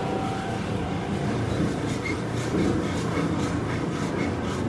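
Running sound of a Seibu 9000 series electric train motor car under way: a steady rumble of the traction motor and wheels on the rail, with faint repeating clicks. This car's traction motor is one known for making an abnormal noise.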